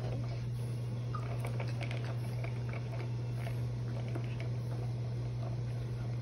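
French Bulldog mouthing and chewing on a plastic baby toy, with faint scattered clicks and smacks, heard over a steady low hum.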